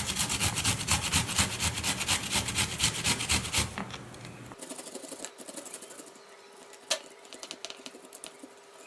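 Fresh peeled ginger being grated on a fine grater: quick, even rasping strokes, about four a second, for the first three and a half seconds. The strokes then fade to faint scraping with a few light taps, one sharper tap near seven seconds.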